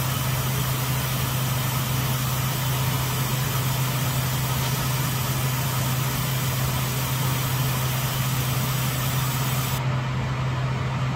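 Steady hum and rush of a fume extractor fan, with the high hiss of a 20 W laser working a black-coated aluminium shim. The hiss cuts off suddenly near the end as the laser stops, leaving the fan's hum.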